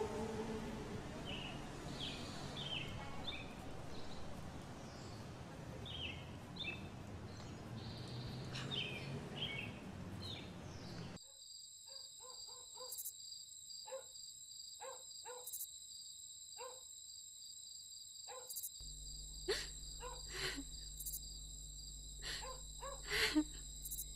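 Outdoor ambience with small birds chirping over a steady background hiss. About eleven seconds in, it cuts abruptly to a quiet room with a high electrical whine and scattered clicks and knocks, joined by a low hum near the end.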